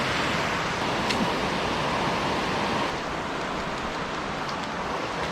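Water pouring over a river dam: a steady rushing noise, slightly quieter about three seconds in.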